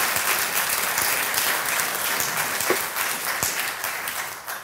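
Audience applauding, many hands clapping at once; the clapping dies away near the end.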